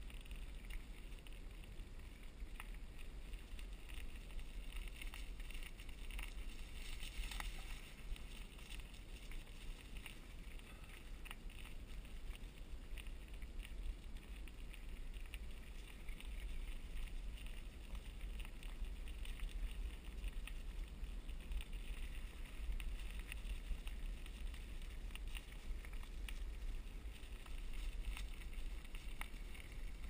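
Cannondale bicycle rolling along a leaf-strewn dirt trail: tyre noise with scattered clicks and rattles from the bike, over a steady low wind rumble on the camera microphone.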